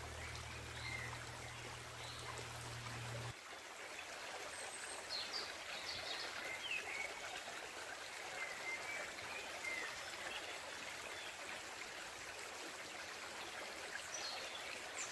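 A woodland creek flowing steadily, with birds chirping now and then over the water. A low hum under it stops suddenly about three seconds in.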